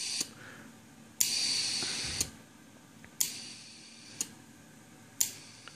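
Relay-switched solenoid air valves of a homebuilt ROV ballast system clicking about once a second while venting the inner-tube ballast bladders, each opening letting out a hiss of air. The first hiss lasts about a second; later ones are short and fade as the tubes empty.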